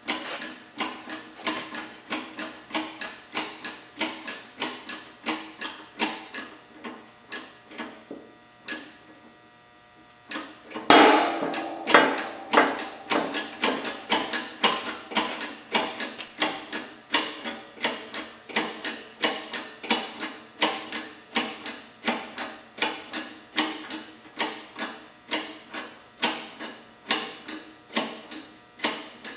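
Rhythmic metal clacks about twice a second from working a hydraulic shop press on a Cummins 4BTA connecting rod's wrist-pin bushing. After a short pause there is a single loud, ringing metal bang about eleven seconds in, and then the clacks carry on.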